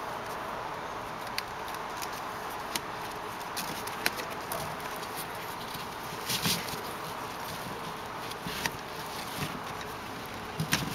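Nylon webbing strap being worked through a metal strap buckle: scattered small clicks and a brief rustle of strap sliding about six seconds in, over a steady background hiss.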